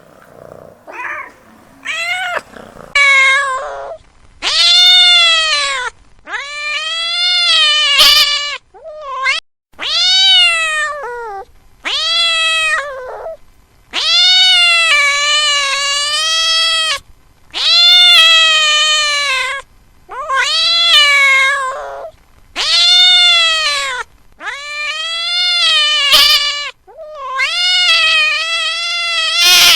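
Domestic cat yowling loudly in a series of drawn-out angry caterwauls, a few short calls at first and then about a dozen long ones, each rising and then falling in pitch, with short pauses between.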